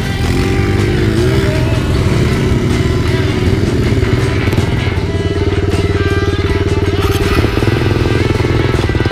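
Small dirt bike engines idling, the nearest being the Kawasaki KLX110's four-stroke single. It revs briefly in the first second or so, then settles into a steady idle.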